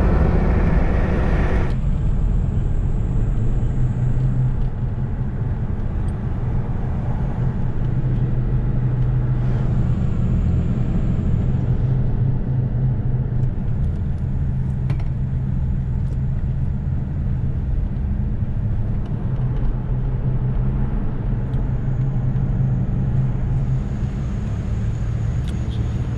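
A car or truck being driven along a road: a steady low engine and road-noise drone.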